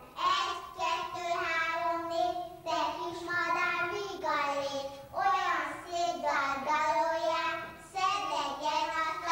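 Young children singing a song together in unison, in held, steady notes.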